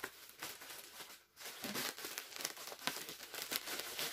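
Plastic wrapping crinkling and rustling as a rolled, plastic-packed bundle is handled and worked open by hand. It goes quiet briefly about a second in, then resumes as a dense crackle.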